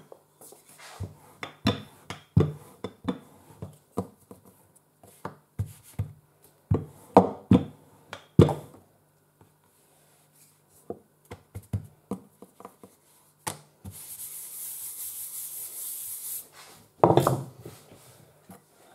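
Rolling pin rolling out a sheet of fondant on a worktop: irregular rubbing and knocking strokes of the pin against the surface. Near the end comes a steady hiss for about two seconds, then a single louder thump.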